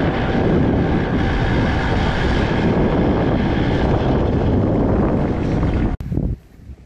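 Wind rushing over the microphone while riding a small 50 cc motorbike, its engine running underneath. The noise cuts off abruptly about six seconds in.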